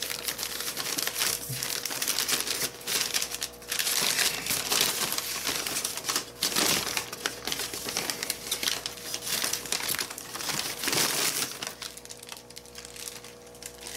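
Crumpled newspaper packing being pulled out of a cardboard shipping box, crinkling and rustling in irregular bursts, easing off near the end.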